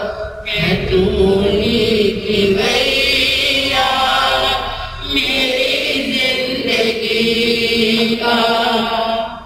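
Jain devotional chanting: a sung invocation in long held notes, in phrases a few seconds long with short breaks for breath between them.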